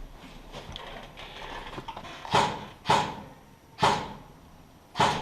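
Four loud, sharp impacts, about half a second to a second apart, each with a short ringing tail, over faint rustling.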